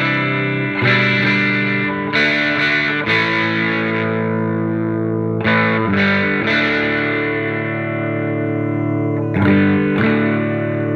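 Electric guitar chords strummed and left to ring, about six strums, each fading before the next. The guitar is a 1987 Gibson Les Paul 1959 Reissue with Seymour Duncan pickups, playing through a hand-wired Marshall JTM45 Plexi clone head with KT66 tubes and a 1x12 cabinet.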